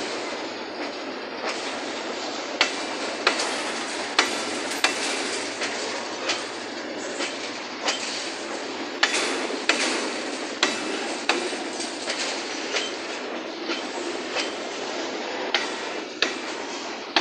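Freight train of hopper wagons rolling past: a steady rumble of steel wheels on rail, with sharp clacks about once a second as the wheels cross rail joints.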